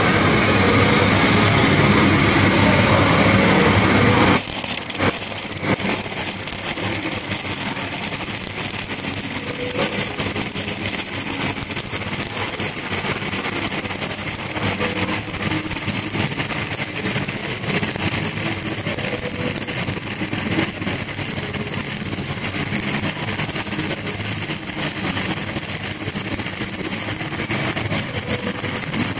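Stick-welding arc of an 8010G cellulosic pipeliner rod running a downhill weld: a steady crackling, sputtering arc. It is louder and denser for the first four seconds or so, then drops suddenly to a slightly quieter, even crackle.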